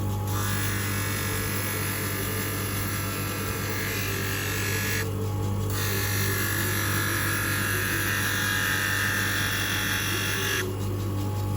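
Manual lens edging machine running with a steady motor hum while a plastic spectacle lens grinds against its abrasive stone. The grinding hiss breaks off briefly about five seconds in and again near the end.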